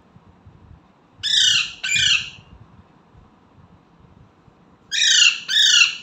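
Indian ringneck parrot giving loud, harsh squawks in two pairs, the second pair about three seconds after the first, each call dropping in pitch.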